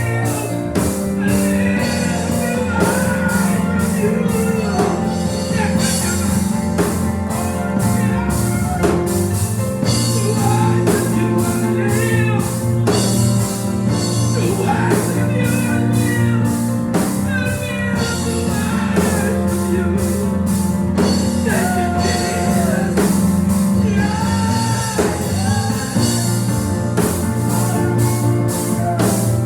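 Live gospel band music, with bass, organ or keyboard chords, guitar and steady drums, and voices singing or shouting along over it.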